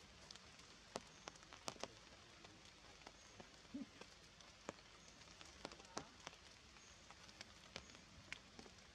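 Faint, irregular dripping of rainwater from the forest foliage after rain: scattered sharp ticks, about one or two a second, over a low steady hiss.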